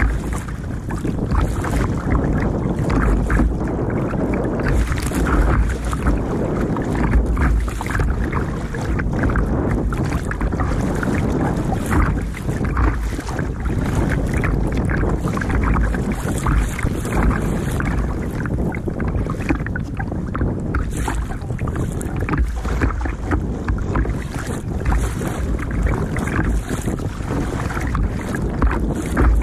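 Wind buffeting the microphone close to the water, with choppy sea sloshing and splashing against the plastic hull of a sit-on-top kayak. The water noise is continuous, broken by frequent short, irregular splashes.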